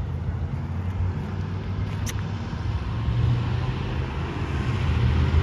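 Street traffic: a steady low rumble of passing vehicles that grows louder toward the end, with one short click about two seconds in.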